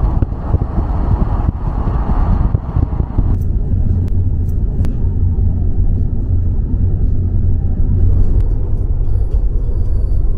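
Road and tyre noise inside the cabin of an electric Tesla Model 3 cruising at motorway speed: a steady low rumble with no engine note. A little more hiss sits over the rumble for the first three seconds or so.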